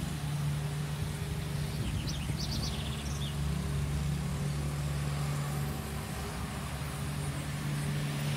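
Street traffic: a steady low engine hum from cars on the road. A few short high chirps come about two seconds in.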